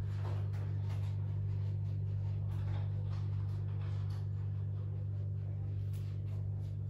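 A steady low hum with a few faint soft clicks over it.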